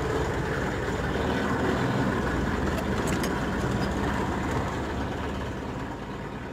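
A fishing boat's engine running steadily under wind and sea noise, with a couple of faint clicks about three seconds in. It fades away near the end.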